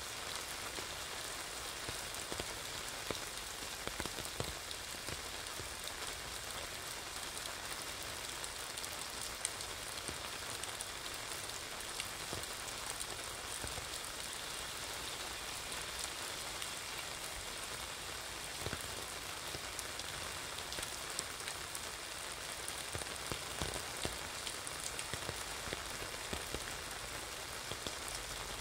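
Steady rain falling on wet pavement, with many close, sharp drop ticks on an umbrella canopy overhead.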